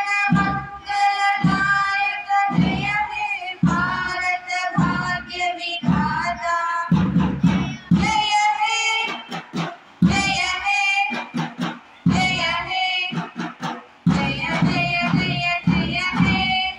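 Schoolchildren singing a song together in phrases of about a second, each followed by a short break.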